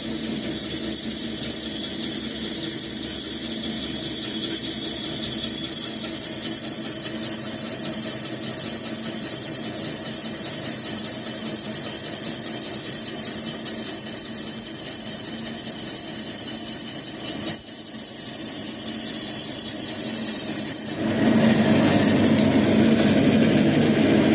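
Scheppach vario bandsaw blade cutting a 21 mm 6061 aluminium square bar: a steady high-pitched whine with fine chatter over the saw's motor hum. Near the end the whine cuts off suddenly and the saw runs on with only a lower hum, the blade through the bar.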